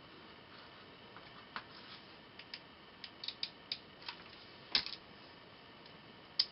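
Light, scattered clicks and taps, about a dozen, from small metal craft pieces (a wing nut and propeller) and a hot glue gun being handled on a work table, with the sharpest clicks about three-quarters through and just before the end.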